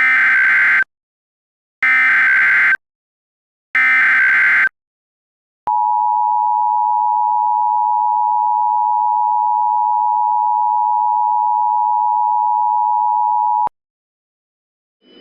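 Emergency Alert System tones: three short digital data bursts of the SAME header, about two seconds apart, then the EAS attention signal, a steady two-tone 853 and 960 Hz tone held for about eight seconds.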